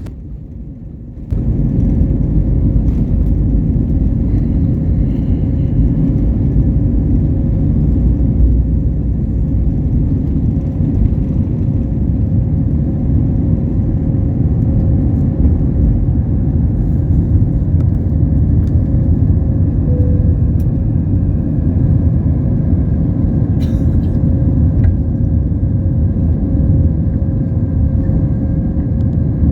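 Steady low rumble of a jet airliner's cabin in flight, engine and airflow noise heard from a window seat, with a faint steady hum over it; it cuts in suddenly about a second in.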